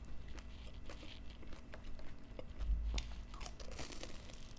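Close chewing and crunching of crispy fried galunggong (mackerel scad): a scatter of small crisp clicks and crackles.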